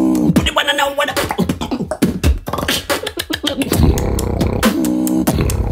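Solo beatboxing: a fast vocal drum beat of kick, snare and hi-hat clicks made with the mouth. Short hummed bass notes come near the start and again just before the end, with a brief higher, buzzy vocal synth tone about half a second in.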